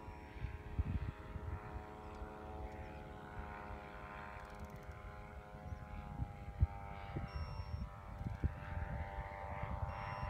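Distant drone of an ultralight airplane's Polini Thor 250 two-stroke engine and propeller in flight overhead, a steady pitched hum that shifts slightly as it flies by. Gusty low rumbles of wind on the microphone, with a sharp buffet about two-thirds of the way through.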